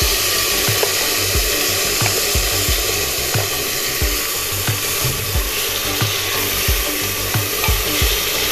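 Food sizzling in a hot oiled pan while being stirred, with the spatula knocking and scraping against the pan about twice a second.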